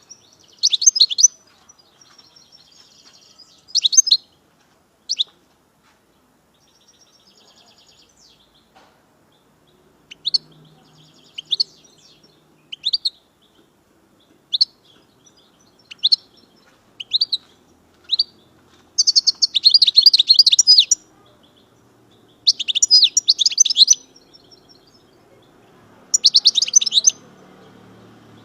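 European goldfinch (Algerian chardonneret major) calling and singing: high, sharp single notes about a second apart, then several bursts of fast twittering song in the second half.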